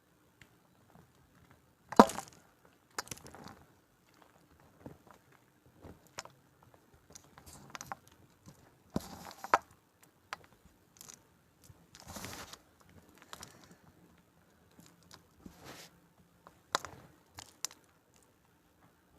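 A slab of gym chalk with a cornstarch topping being crushed: sharp, irregular crunches and crumbling crackles with short quiet pauses between them, the loudest crunch about two seconds in.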